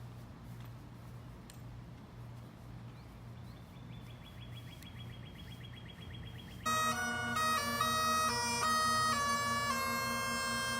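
Bagpipe music starts suddenly about seven seconds in: a steady drone under a changing melody. Before it there is only a faint low hum.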